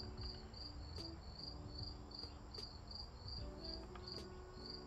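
A cricket chirping steadily in short high-pitched pulses, about two to three a second, with a few faint clicks.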